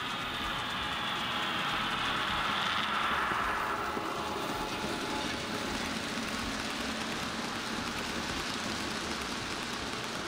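Märklin model iron ore train running past: a steady motor whine is strongest in the first few seconds as the locomotive passes, then gives way to the even rumble of the ore wagons rolling along the track.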